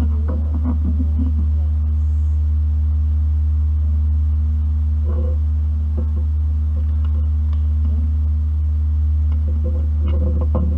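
Steady loud low hum throughout, with faint rustling and light clicks of hands handling a plastic TP-Link desktop network switch and its packaging near the start, around five seconds in, and near the end.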